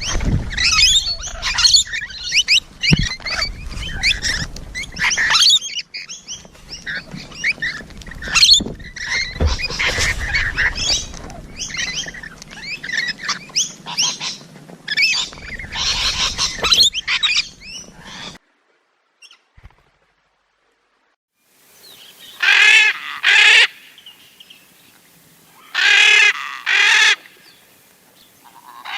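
Flock of parrots chattering and chirping densely, cutting off suddenly about 18 seconds in; after a few seconds of silence, a parrot gives two loud, harsh double calls a few seconds apart.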